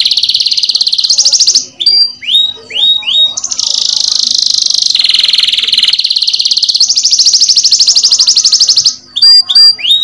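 Domestic canary singing: long fast rolling trills, broken about two seconds in and again near the end by a few sharp notes that each sweep downward in pitch.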